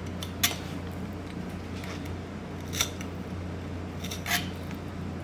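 A sharp fillet knife slicing along a fish's backbone and through its scales, giving three short, crisp cutting sounds spread over a few seconds.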